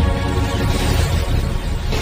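Background music with held, sustained tones over a dense low rumble.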